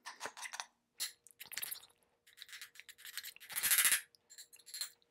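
Metal spoon scraping and clinking against a ceramic bowl in irregular strokes, stirring half-melted chocolate, with one longer, louder scrape about three and a half seconds in.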